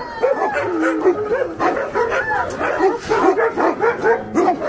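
A pack of kennelled dogs barking, yipping and whining all at once in a dense, overlapping chorus: excited at their caretaker's return.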